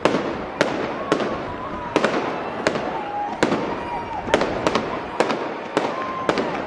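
Aerial firework shells bursting in a rapid, irregular volley of sharp bangs, about ten of them, over a continuous crackle and rumble. Thin wavering whistles sound between the bangs.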